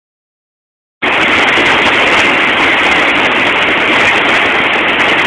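Loud, steady rush of fast-flowing white water, starting suddenly about a second in.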